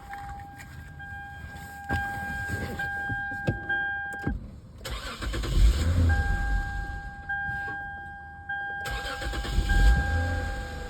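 2007 Lexus IS350's 3.5-litre V6 cranking and starting, once about five seconds in and again near the end, when it settles into a steady idle. It starts with the fuel rail pressure sensor unplugged, which points to that sensor as the cause of the no-crank fault. A dashboard chime sounds in repeated tones between the starts.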